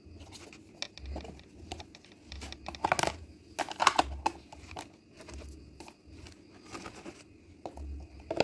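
Frosted plastic stationery box handled and turned in the hands: a run of light plastic clicks, taps and crinkly rustles, loudest in two bunches about three and four seconds in.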